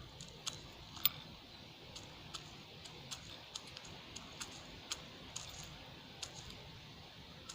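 Small pieces of scrap solder clicking as they are dropped onto a scale one by one: irregular light ticks, roughly two a second.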